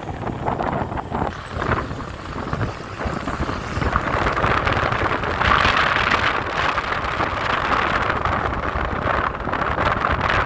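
Wind rushing over the microphone with road noise from a moving vehicle, a steady rush that grows louder about four seconds in.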